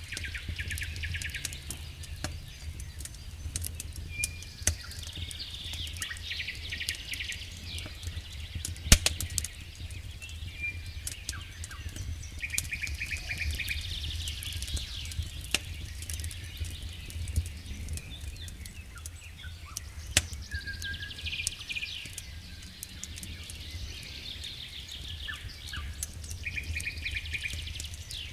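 Wood campfire crackling, with scattered sharp pops, two of them louder about nine and twenty seconds in. Small birds trill and chirp in repeated short phrases, over a steady low rumble.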